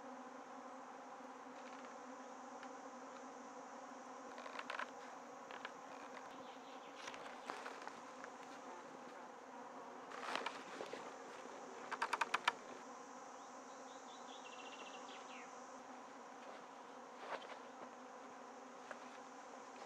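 Steady buzzing hum of flying insects in summer woodland. Occasional wooden knocks and a quick clatter of clicks about midway come from the wooden pole ladder being handled and climbed.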